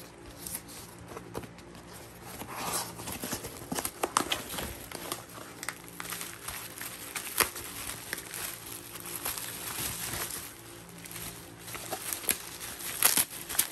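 Packaging being unwrapped by hand: a small cardboard box opened and bubble wrap and a plastic blister tray crinkling and rustling, with irregular clicks and knocks. A faint steady hum runs underneath.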